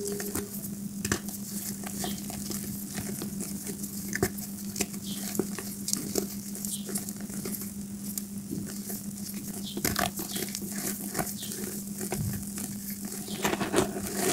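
Lumps of gym chalk crushed and crumbled by hand: irregular crunching and crackling as pieces break and powder sifts through the fingers.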